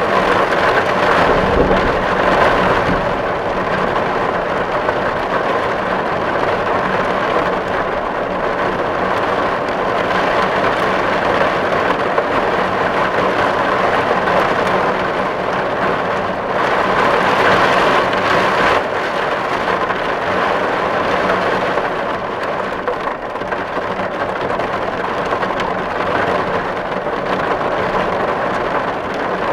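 Steady rain drumming on a tin roof, with a brief low rumble about two seconds in and a heavier spell of rain about two-thirds of the way through.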